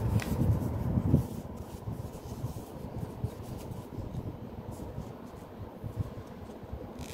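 Paper wrapping rustling as it is pulled off a small plastic part during the first second or so. After that comes quieter handling noise with faint scattered clicks as the part is fitted to the gimbal handle.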